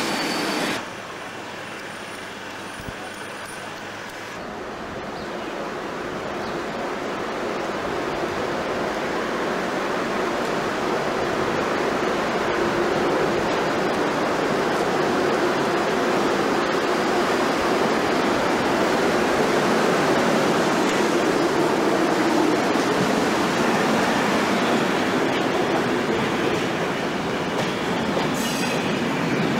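InterCity train moving slowly along the platform: a steady rumble of coaches on the rails that builds over several seconds, with a few sharp clicks of wheels over rail joints near the end.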